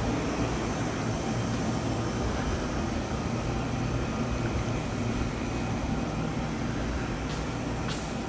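Steady low rumble and hum of machinery-like background noise, even throughout, with a couple of faint ticks near the end.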